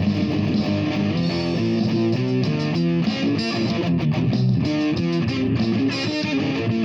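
Guitar playing freestyle, a continuous run of quickly changing notes.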